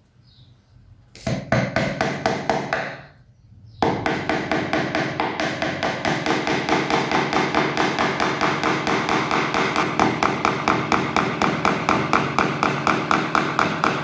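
Small hammer tapping a nail through cotton canvas into a wooden frame: a few knocks from about a second in, then from about four seconds in a fast, even run of light taps.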